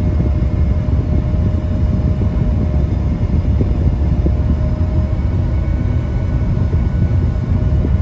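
Combine harvester running steadily while harvesting barley and unloading grain through its auger into a trailer alongside, heard from inside the cab as a continuous low drone with a faint steady whine.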